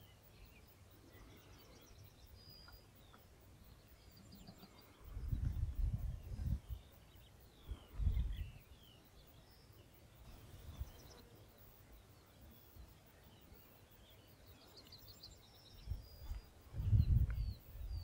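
Small birds chirping and trilling in short phrases over a quiet rural background, broken by brief low rumbles about five, eight and seventeen seconds in.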